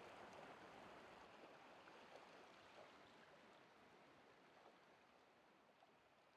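Faint rushing of a creek's flowing water, fading away steadily.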